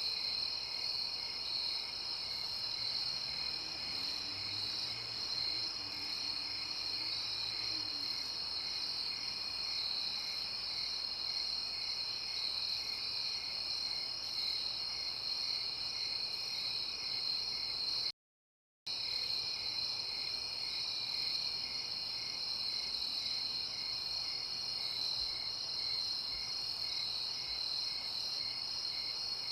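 Night ambience of crickets chirping steadily in a dense high trill, with a slower, regularly pulsing chirp beneath it. The sound cuts out completely for about half a second around 18 seconds in, then resumes unchanged.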